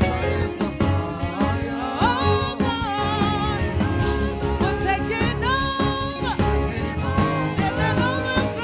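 A worship song with singing over a band with a steady beat.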